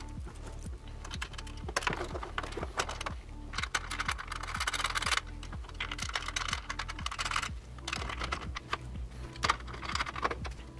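Rapid, irregular clicking and clattering of a rack-mount power distribution unit and its hardware being handled and fitted into a metal server rack, over a low steady hum.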